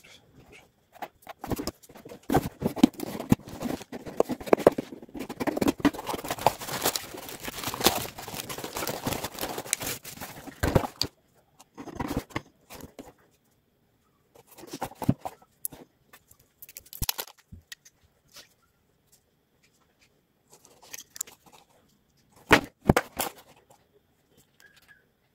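A cardboard parcel being torn open and unpacked by hand. For about the first eleven seconds there is dense tearing, crackling and rustling; after that come scattered clicks and knocks as bottles are lifted out and handled.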